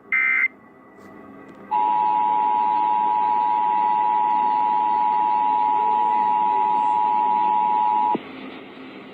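A short burst of Emergency Alert System digital data tones at the very start, then the EAS two-tone attention signal, 853 and 960 Hz sounded together, from nearly two seconds in for about six and a half seconds, cutting off abruptly, over faint broadcast hiss.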